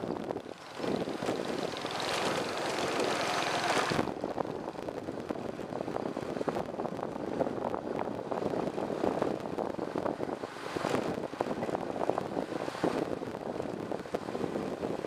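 Riding noise from a moving bike: wind rushing over the microphone with a steady engine-like drone. A harsher, brighter stretch cuts off sharply about four seconds in.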